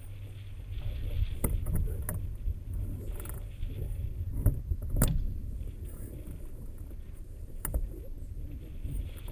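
Wind buffeting the microphone in a low, steady rumble, with a few sharp clicks and knocks from handling cockpit fittings.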